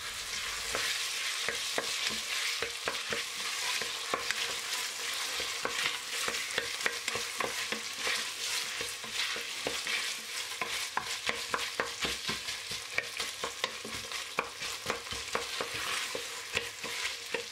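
Diced vegetables and tomato and pepper paste frying in oil in a stainless steel pot, stirred with a wooden spoon: a steady sizzle with many small crackles and taps of the spoon against the pot.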